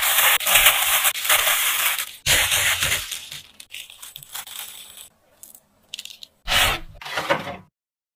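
A plastic-gloved hand mixing crumbly walnut-crisp dough with chopped walnuts: crunchy rustling and crinkling for about two seconds, then several shorter, fainter bursts of rustling.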